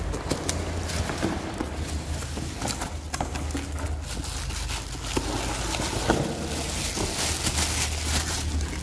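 A cardboard box being opened and unpacked by hand: the inner carton scraping out of its sleeve, cardboard and plastic rustling, and scattered knocks and taps as the contents are handled, louder rustling about seven seconds in. A steady low hum runs underneath.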